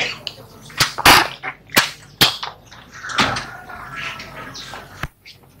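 Handling noise: about six sharp knocks and clicks with rustling in between, the loudest about a second in.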